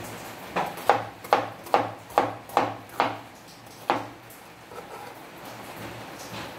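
Cleaver chopping a bitter melon into slices on a wooden cutting board: about eight sharp chops, a little over two a second, stopping about four seconds in.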